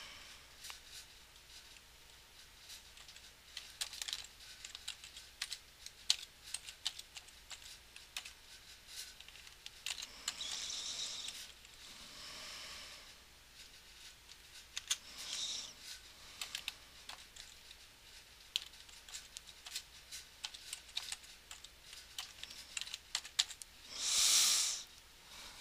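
Faint typing on a computer keyboard: scattered key clicks as a passphrase is entered. A few soft rushes of noise come between them, the loudest near the end.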